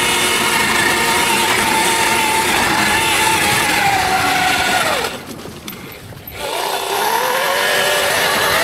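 Electric dirt bike's motor whining under throttle over a rushing noise. Its pitch slides down as the throttle is eased off, and about five seconds in it dies away for a moment before coming back and rising and falling with the throttle.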